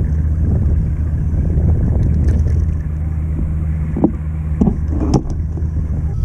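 Steady low drone of a nearby boat engine carrying over the water, with a few sharp knocks about four and five seconds in.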